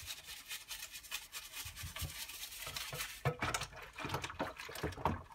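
Hands scrubbing the plastic cyclone parts of a Dyson DC41 vacuum cleaner in a bowl of warm soapy water: irregular rubbing and wet handling noise.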